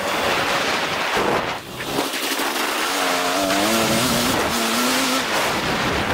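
KTM 250 SX-F four-stroke motocross bike engine revving hard under throttle, its pitch wavering up and down, briefly dropping off about a second and a half in. Heavy wind rush on the helmet camera's microphone.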